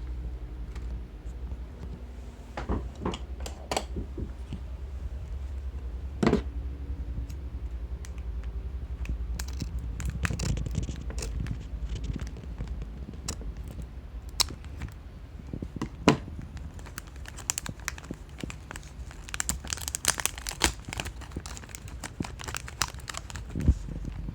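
Small plastic card packets crinkling as they are handled and torn open, in irregular rustles and sharp crackles, over a steady low hum.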